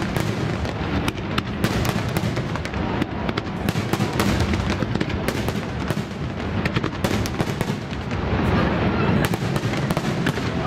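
Aerial firework shells bursting in a dense run: many sharp bangs in quick succession over a continuous low rumble, with no pause.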